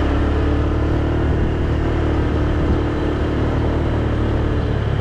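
Motor scooter engine running steadily at an even cruising speed, with a constant low drone under road and wind noise.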